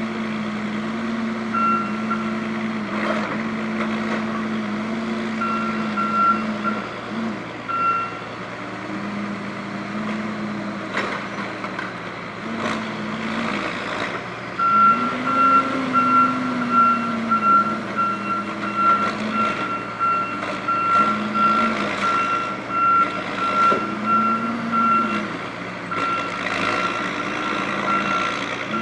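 Heavy diesel forestry machine working, its engine note rising and falling as it is throttled up and down. A reversing alarm beeps on and off at first, then sounds in a steady unbroken string of beeps from about halfway through.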